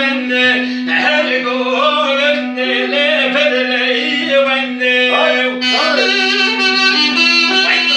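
A man singing into a microphone over music, with a steady drone note held beneath the melody.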